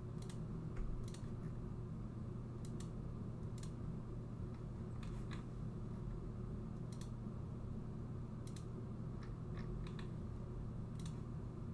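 Computer mouse clicking: about fifteen short, sharp clicks spread unevenly, some in quick pairs, over a steady low hum.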